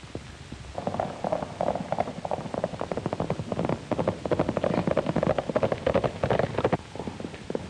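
Hoofbeats of two ridden horses on a dirt road: a rapid, dense clatter that starts about a second in and eases off shortly before the end, over the steady hiss of an old film soundtrack.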